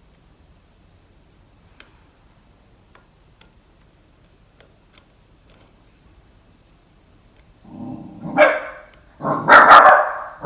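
A pet dog barking a few times, loudly, starting in the last few seconds. Before that there are only a few faint ticks.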